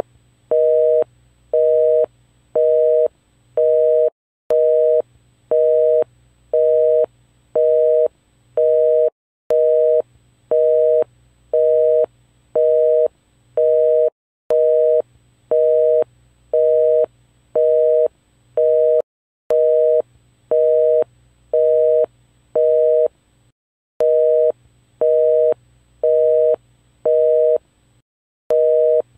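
Telephone busy signal: a two-tone beep repeating on and off, about one and a half beeps a second, with a short break every few seconds.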